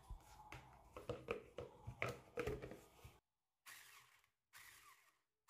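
Faint scattered clicks and light knocks from a bowl and utensils being handled. The sound drops out to dead silence three times in the second half.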